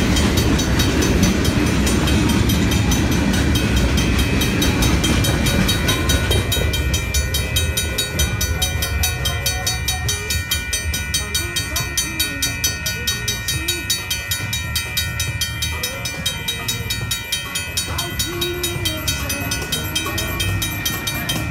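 Empty freight hopper cars rumbling and clacking over the grade crossing for the first six seconds or so, then fading as the train clears. The crossing signal bells keep up a rapid, steady ringing to the end while the signals stay activated.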